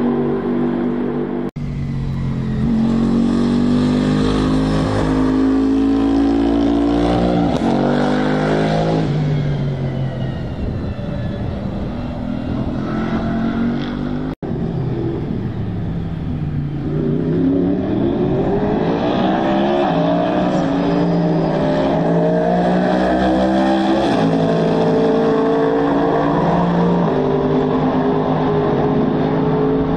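Twin-turbo V8 race car engine at full throttle, its note climbing through a series of upshifts, falling away, then climbing through the gears again. Tyres hiss through standing water on the track. The sound cuts out for an instant twice, about a second and a half in and about halfway.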